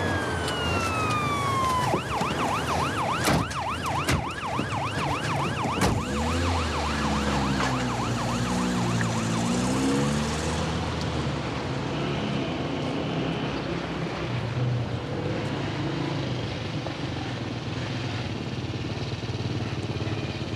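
Emergency vehicle siren: a slow wail falling away over the first two seconds, then a fast repeating yelp that fades out about ten seconds in.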